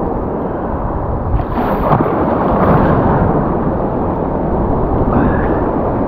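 Surf waves washing and breaking around a wader standing in the water, a loud steady wash of water noise close to the microphone.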